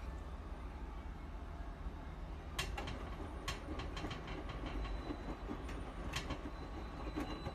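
Bosch washing machine running with a steady low rumble. From about two and a half seconds in, a string of sharp clicks or knocks comes at irregular intervals: the weird noise the owner is recording.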